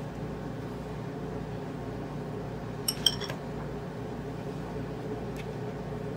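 A metal fork gives two quick clinks against a ceramic bowl about three seconds in, as an egg-coated chicken patty is lifted from the beaten egg. A steady low background hum runs underneath.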